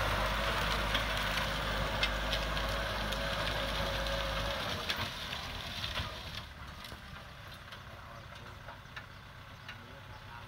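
Kubota M60-40 tractor's diesel engine running under load while pulling a disc implement, fading as it moves away; its low rumble drops out about halfway through. Scattered sharp clicks sound throughout.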